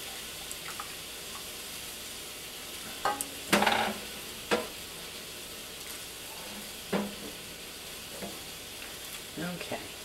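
A whisk stirring thick cheese sauce in an enameled cast-iron Dutch oven, with a handful of sudden clacks and scrapes against the pot, the loudest about three and a half seconds in. A steady sizzling hiss from other food cooking on the stove runs underneath.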